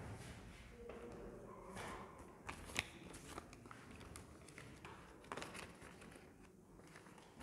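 Faint rustling and crinkling of paper ballots being unfolded and handled during counting, with a few light clicks and taps.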